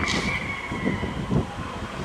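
Isle of Man Railway Beyer Peacock 2-4-0 steam tank locomotive running slowly along the track. A high steady squeal fades out about a quarter second in, followed by several dull low thumps.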